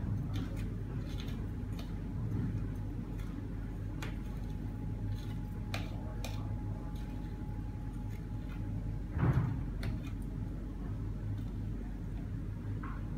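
Sodium acetate powder being spooned from a plastic bag into a glass beaker on a scale: small scattered clicks of the spatula against the glass and bag, with one louder knock about nine seconds in. A steady low hum runs underneath.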